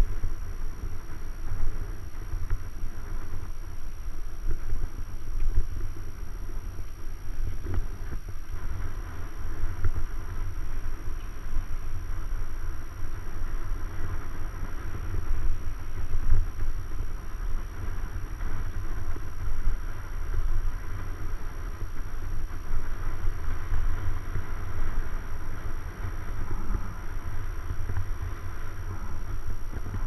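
Wind buffeting the microphone of a camera riding on a moving mountain bike, a steady, gusting low rumble, with fainter road and tyre noise over the asphalt.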